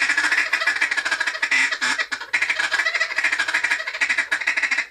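Duck call (a Cadence) blown in a fast, continuous run of short ticking notes, the 'tiki-tiki' feeding chatter that imitates ducks feeding. It is loud, with a brief break about two seconds in.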